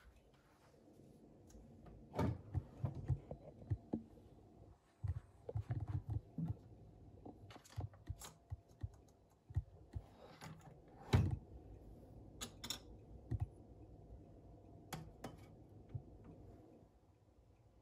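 Scattered light clicks, taps and knocks of a capsule coffee machine being handled: its capsule lever lifted and shut and a small ceramic cup set on the drip tray under the spout.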